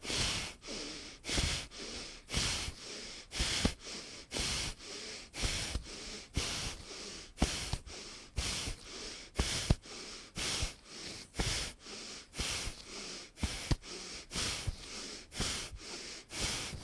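A person breathing quickly and rhythmically, about two breaths a second, during a twisting breath exercise done at a fast pace. A few light taps of a hand on the chest mark the twists.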